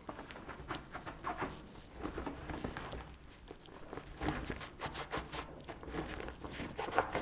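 Sponge-tipped bottle of Schwalbe Easy Fit tyre-mounting fluid rubbing and dabbing along the bead of a studded fat-bike tyre, with hands handling the rubber. Quiet, irregular rubbing with soft taps.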